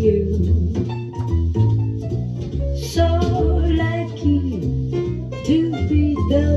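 A jazz ballad played back through a 300B single-ended tube amplifier and an Altec 604-8G coaxial loudspeaker, heard in the room. It is a steady passage of instruments with a walking bass line and no words sung.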